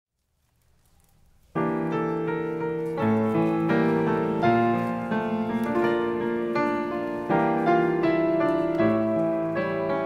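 Piano playing a slow chordal introduction, coming in about a second and a half in after near silence, with the chords changing every second or so.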